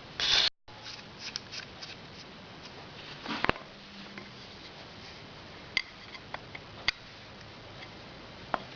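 Light clicks and taps of small carburetor parts and jets being handled on a workbench, with a sharper click about three and a half seconds in. A short loud rustle right at the start cuts off abruptly, over a steady low hum.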